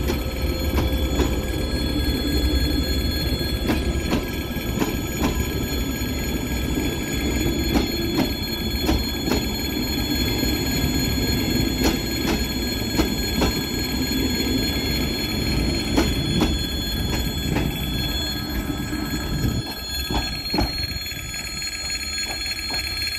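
ES1P "Lastochka" electric train rolling past at low speed: a low rumble, wheels clicking irregularly over rail joints, and several steady high-pitched squealing tones.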